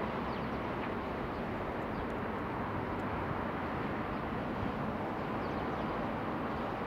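Steady distant rumble of a CRH6F electric multiple unit train running on the line, with a few faint high chirps now and then.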